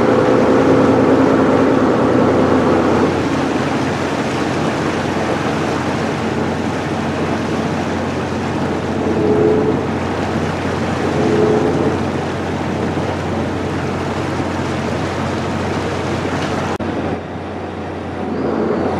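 Twin turbocharged Detroit Diesel engines of a tour catamaran running steadily under way, a constant low hum under a wash of wind and water noise. The level dips and the sound changes abruptly near the end.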